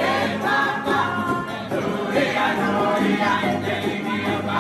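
A mixed group of men and women singing together in chorus to strummed ukuleles and guitars, without pause.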